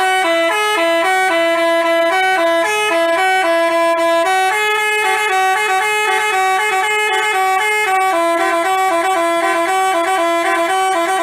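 A telolet basuri bus horn playing a tune: loud, bright multi-note honks that step up and down in pitch several times a second. It cuts off suddenly near the end.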